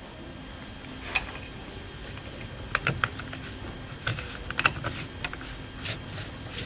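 Scattered, irregular light clicks and taps as gloved hands handle a metal aft closure and thread it onto a rocket motor case.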